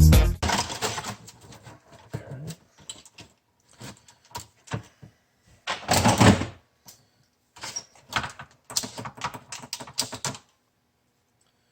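Hands pulling apart the plastic housing and parts of a food vacuum sealer: scattered clicks, knocks and rattles of plastic, with a louder clatter about six seconds in, stopping about ten seconds in.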